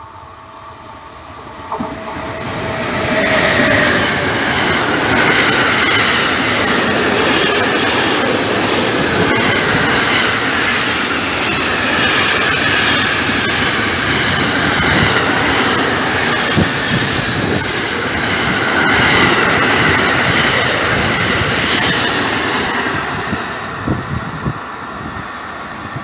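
Freight train of intermodal container wagons, hauled by a Vectron electric locomotive, running past: a continuous rumble and clatter of wheels on rails with a high wheel squeal over it. It builds up over the first few seconds and eases a little near the end.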